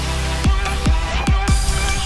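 Electronic background music with a steady beat of deep kick drums that drop in pitch, over held synth tones.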